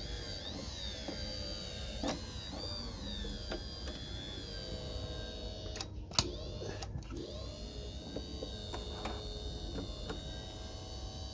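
Janome Model 672 sewing machine's motor whining, its pitch wavering and shifting, with a few sharp clicks, the loudest about six seconds in. It is the abnormal noise of a junk machine that will not run.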